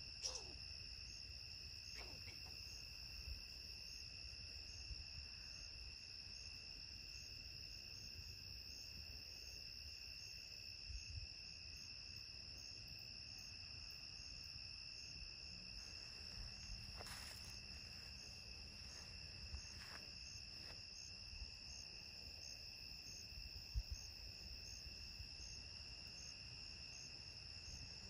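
Crickets trilling steadily in a night chorus, a constant high-pitched ring, with a few faint clicks or scuffs.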